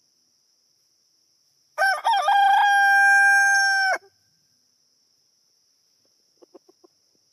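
White Silkie rooster crowing once, about two seconds long: a broken, stepping start, then a long held note that cuts off sharply.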